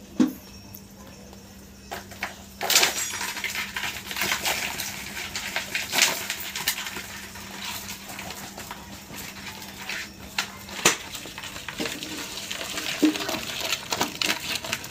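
Freshly caught wet shrimp tipped from a cloth bag into a plastic basin: scattered wet clicks and rustles as the catch lands and shifts about.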